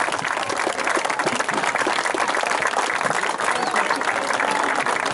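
Spectators clapping and applauding steadily at a football match, a dense patter of many hands.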